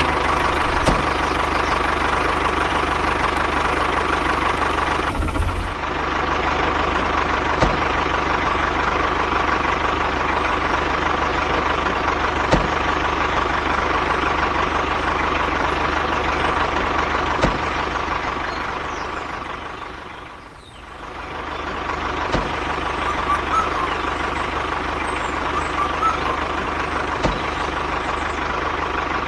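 Truck engine running steadily, with a constant whine through the drone. It fades out and comes back about twenty seconds in.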